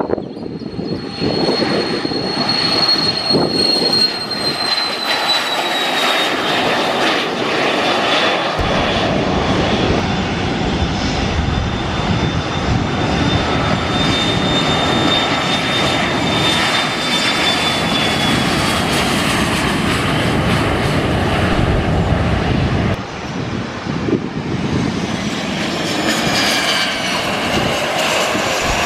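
Business-jet turbofan engines running at taxi power: a steady broad engine rush with a high-pitched turbine whine on top that slowly sinks in pitch, and shifting whine tones near the end as another jet passes.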